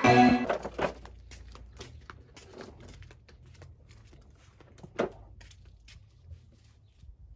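The tail of intro music ends in the first half second, then faint crackling and rustling of dry leaves with scattered clicks. One sharp knock comes about five seconds in, as the garden rake is taken up from the railing.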